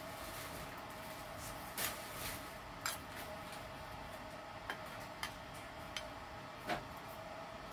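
Kitchen knife clicking against a plate while cutting watermelon chunks: about seven sharp, irregular clicks over a steady faint hum.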